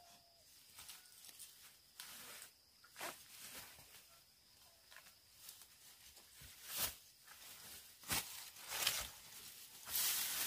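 Irregular rustling and scraping of something being handled, with a few sharper knocks and scrapes and a louder stretch near the end. A few short chirps, like a bird or chick, come right at the start.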